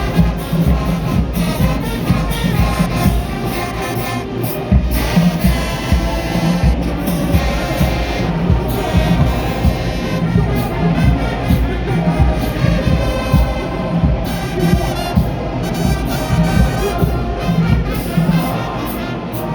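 Marching band playing: brass over a steady beat of drums.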